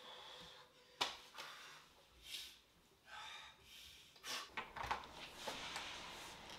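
A door being opened by its lever handle: a sharp click about a second in, then soft rustles and a cluster of smaller handle and latch clicks near the end.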